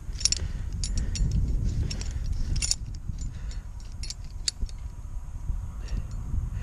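Metal climbing hardware, such as carabiners and rigging gear, clinking and jingling in a dozen or so irregular light clicks. Under it runs a steady low rumble of handling and movement noise on the camera microphone.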